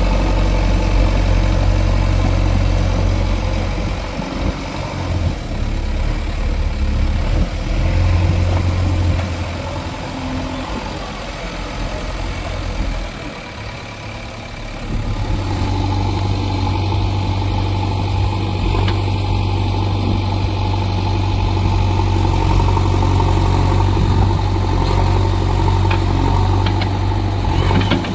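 JCB 3DX backhoe loader's diesel engine running steadily under work. It eases off about halfway through, then picks up again and holds a steady, stronger note. A few sharp ticks come near the end.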